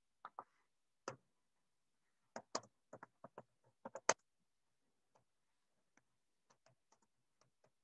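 Laptop keyboard being typed on: faint, irregular key clicks in short runs, a little louder in the first four seconds and softer after that.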